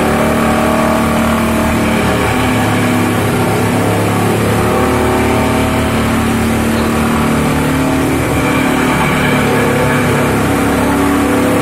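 Tractor-driven chaff cutter at work: the tractor's diesel engine runs steadily under load, driving the cutter as it chops green fodder and blows it out of the delivery chute.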